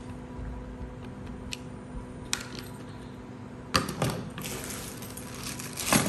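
Scattered clicks and knocks of a screwdriver and hard plastic as the circuit board is taken out of an induction cooktop's plastic base. A louder knock comes almost four seconds in, and a clatter near the end.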